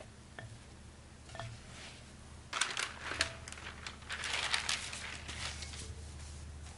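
Plastic cling film crinkling as it is handled, in two spells of crackling, about two and a half seconds in and again about four seconds in.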